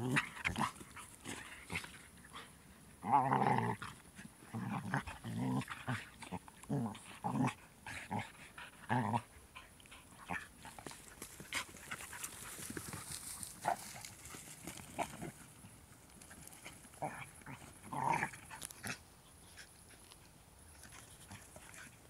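Two Glen of Imaal Terriers play-fighting, giving short growls in bursts, loudest about three seconds in and sparser later on.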